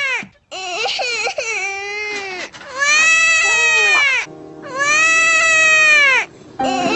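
A child's crying sound effect, loud and high-pitched: a wavering sob followed by two long wails that rise and fall in pitch.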